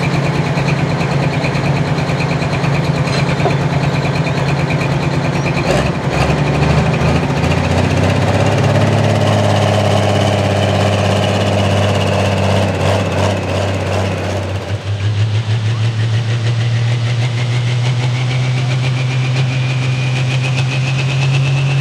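John Deere 4450 pulling tractor's diesel engine running hard under load down the track, its pitch dropping about six seconds in as the sled bears down. About fifteen seconds in the sound switches abruptly to another pulling tractor's engine running at a steady pitch, with a rising whine near the end.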